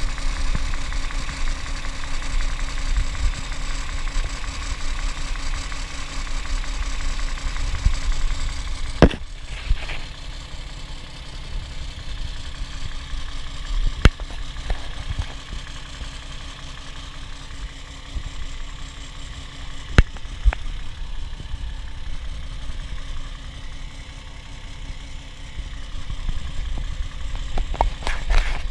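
Toyota 1G-FE inline-six idling hot with its accessory belts removed. An extraneous knock comes from the front of the engine, under the timing cover, which the owner suspects is the VVT coupling. A few sharp clicks stand out above the running engine.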